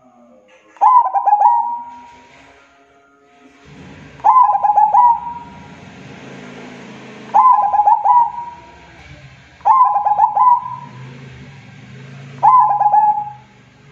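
Zebra dove (perkutut) cooing in its stuttering, rhythmic song. Five coo phrases of about a second each come every two to three seconds, with a faint background hiss beneath from about four seconds in.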